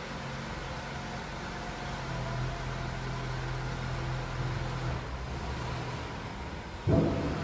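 A steady low mechanical hum, with a sudden louder sound starting near the end.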